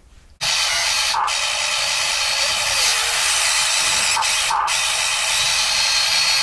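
1:14-scale RC excavator's electric motors running, a steady high whine that starts suddenly about half a second in as the bucket digs into the dirt pit, with two brief changes in tone as the arm shifts.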